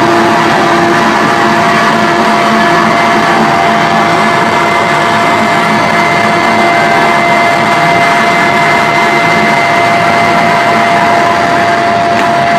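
Loud, steady wall of amplified electric guitar and bass noise, with feedback tones held at one pitch.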